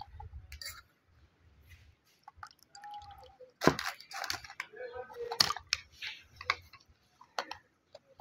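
Lemon water being strained: liquid dripping and splashing, with several sharp clinks, the loudest about halfway through.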